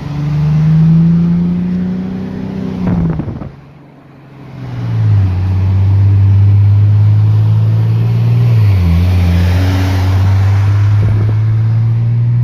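Infiniti sport sedan's V6 engine pulling under acceleration. The pitch climbs, falls away sharply about three seconds in and goes quiet for a moment, then comes back strong. It drops again at another gear change near the end and climbs once more.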